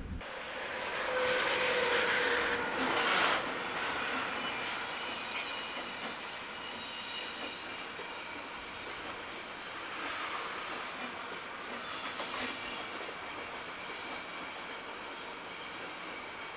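Freight train of pocket wagons loaded with semitrailers rolling past at speed: a steady rush and rumble of wheels on rail, loudest in the first three seconds, with thin high squeals coming and going in the middle.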